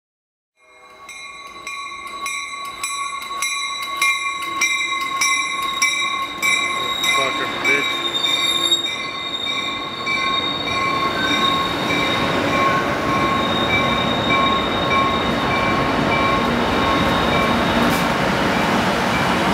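A Trinity Railway Express bilevel commuter train passes along a station platform with a steady high-pitched wheel squeal. For the first half there is a rhythmic clicking about twice a second. The running noise grows louder toward the end as the train's F59PH diesel locomotive comes by.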